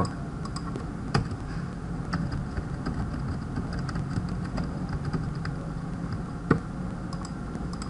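Computer keyboard and mouse clicks, a few scattered taps with one sharper click about six and a half seconds in, over a steady low hum.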